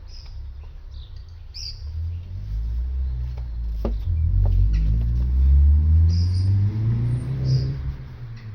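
A vehicle's engine, rising in pitch as it builds up and passes, then fading near the end, with birds chirping.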